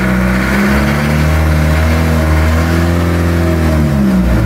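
Fishing bangka's 4DR30 inboard diesel engine being revved. It climbs in pitch over the first second, holds the higher speed for a couple of seconds, then drops back toward idle near the end.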